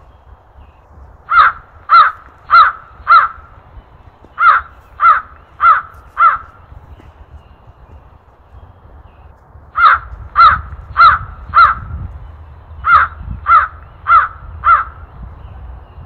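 Hooded crow cawing in four runs of four caws. Within each run the caws come just over half a second apart, and the runs are separated by pauses of about one to three and a half seconds.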